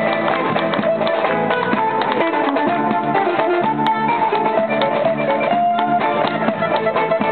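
Music on a plucked string instrument: a quick run of notes over held low notes.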